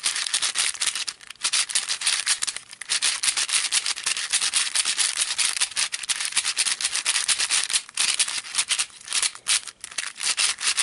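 A new GAN 3x3 speed cube being turned quickly by hand: plastic layers scraping and clicking in rapid succession, a gritty sound like sandpaper, with a few brief pauses. The cube is not yet broken in and turns a bit tight on some sides.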